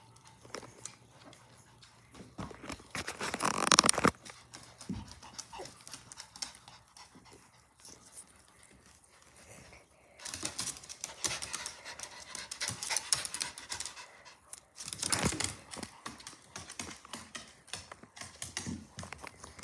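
Pomeranian panting in noisy bursts, loudest about three to four seconds in, again through a long stretch in the middle, and once more near the end, with small ticks in between.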